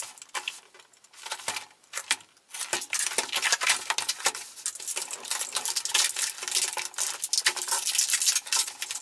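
A cardboard toy box being opened and pulled apart by hand. There are a few sharp clicks and scrapes at first, then dense crackling and rustling of cardboard and plastic from about three seconds in, as the blaster is worked free of its packaging.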